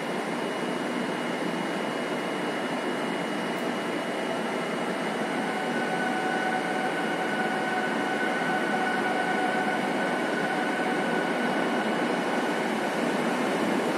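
NEWAG Griffin E4DCUd electric locomotive and its train approaching, a steady rushing noise that grows slowly louder, with a steady two-note whine through the middle.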